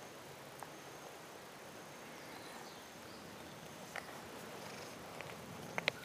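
Domestic cat purring steadily as it is stroked on the head, with a few sharp clicks near the end.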